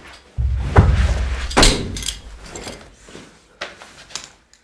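A door banging shut with heavy thumps, two loud knocks within about a second, followed by a few lighter knocks near the end.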